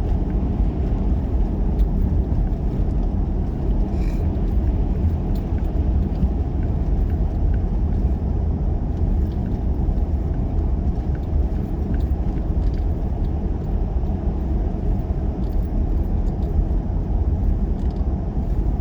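Steady low rumble of a car running, its engine and road noise holding at an even level, with a few faint ticks.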